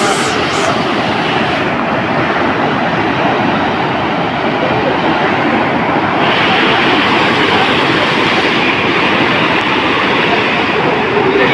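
Muddy floodwater rushing fast down a swollen stream channel: a loud, steady wash of churning water. The sound turns brighter and hissier about six seconds in.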